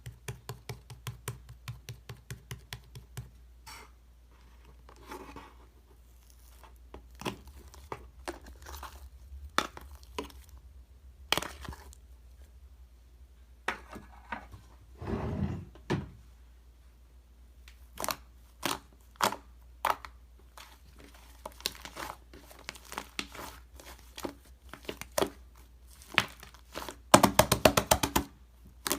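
Slime being pressed, stretched and squished by hand, giving sticky clicks and pops, with a fast run of crackling pops near the end.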